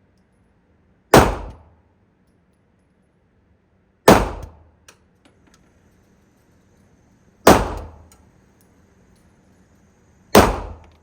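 Four handgun shots fired one at a time, about three seconds apart, each a sharp crack with a short ringing decay.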